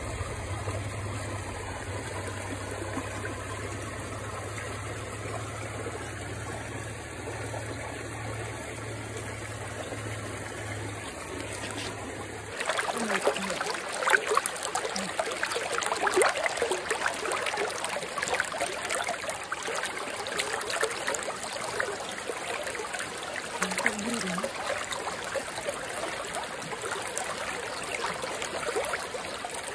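Small stream trickling and splashing over stones. For about the first twelve seconds a steady low hum runs underneath, then it cuts off abruptly and the water sound becomes brighter and busier.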